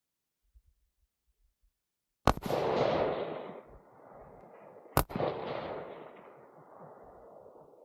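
Two gunshots about two and a half seconds apart, each followed by a long rolling echo that dies away over a couple of seconds.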